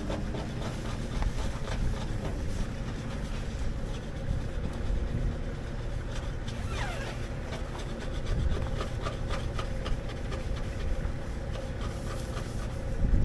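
Rustling and crinkling of a disposable protective coverall as it is pulled on and fastened, with wind rumbling on the microphone.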